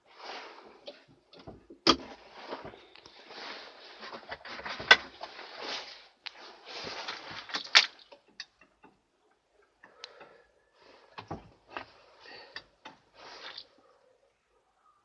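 Rustling and handling noise from someone moving about inside a tractor cab, with sharp knocks about two, five and eight seconds in, then fainter small clicks; the engine is not running yet.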